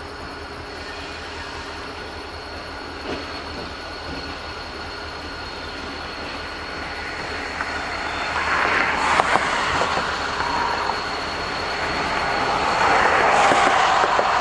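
EMD SD40-2 diesel-electric locomotive approaching with a freight train. Its engine and the train's rumble grow steadily louder as it comes closer, swelling about two-thirds of the way through and again near the end.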